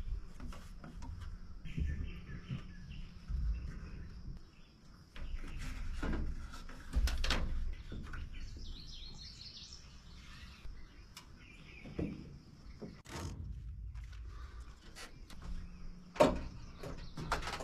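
Birds chirping in the background, with scattered knocks and clicks as string lights are hung under a porch roof from a ladder.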